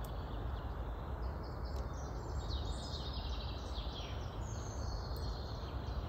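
Several songbirds singing and chirping in a woodland, with short, repeated, quick notes over a steady low background rumble.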